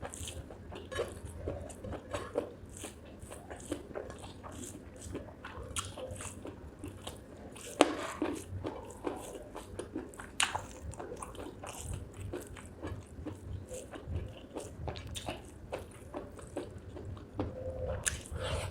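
Close-miked mouth sounds of chewing spicy chicken gizzard with rice: steady biting and chewing made of many short clicks, with one sharp, louder click about eight seconds in.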